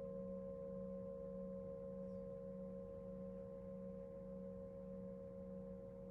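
Singing bowl ringing on in a long sustain: several steady tones over a low hum that wavers in a slow pulse, all slowly fading.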